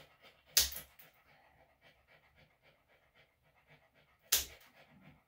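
Two sharp snaps of plier-style dog nail clippers cutting through claws, about four seconds apart. Between them a senior Bichon–Shih Tzu mix pants quickly and faintly.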